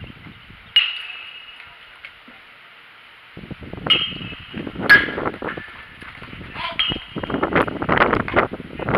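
Sharp metallic clinks, each ringing briefly before dying away: four of them, the first about a second in and the rest between four and seven seconds in. From the middle on, a rough, uneven scraping and rustling noise grows louder toward the end.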